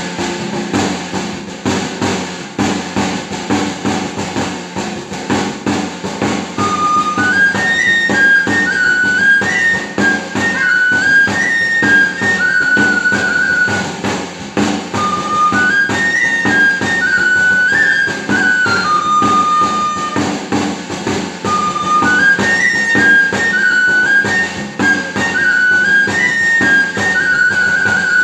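A charrada played on gaita charra (the three-hole pipe of Salamanca) with tamboril drum. The drum beats the rhythm alone at first, then the high pipe melody comes in about seven seconds in, repeating a short phrase over the drum.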